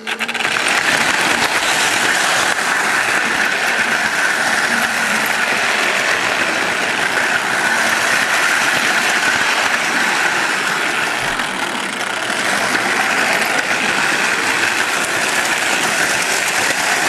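Lionel toy train's electric motor, gears and wheels running steadily along the track, heard close up from a camera riding on the train.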